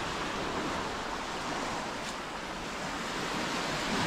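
Small waves breaking and washing up a gravelly sand beach: a steady rush of surf.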